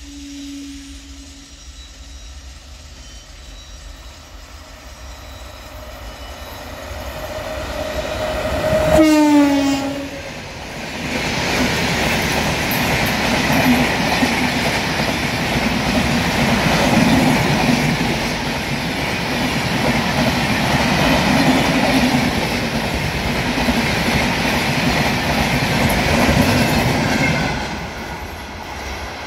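An Indian Railways express train passing at speed: its horn sounds as it approaches and drops sharply in pitch as the locomotive goes by about nine seconds in. The coaches' wheels then rumble and clatter past for about sixteen seconds before the sound falls away near the end.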